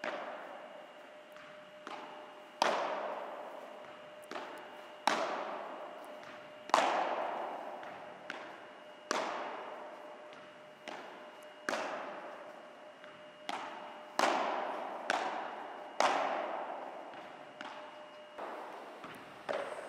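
Padel ball being hit back and forth with padel rackets, a sharp pop every second or so, each ringing out in the echo of a large hall.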